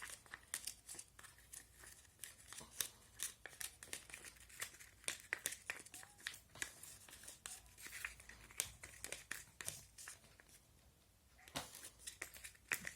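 Spoon stirring a mixture of glue and water in a cup: faint, irregular clicks and scrapes of the spoon against the cup, several a second, with a short pause about ten seconds in.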